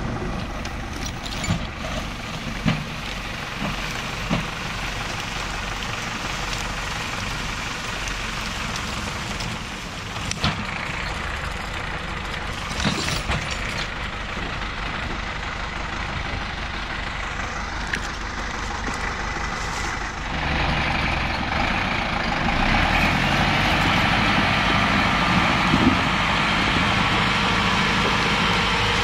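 Zetor Proxima 90 Plus forestry tractor's diesel engine running steadily, with a few short knocks early on; about twenty seconds in the engine grows louder and stays up as the tractor is driven under load.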